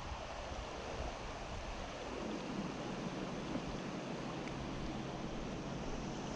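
Steady rush of flowing river water. Wind rumbles on the microphone for the first couple of seconds, then eases.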